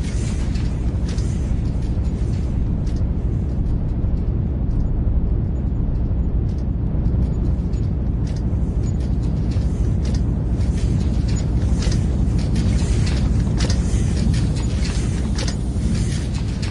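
Factory ambience: a steady, heavy low rumble of running machinery, with irregular sharp clicks and clanks scattered over it.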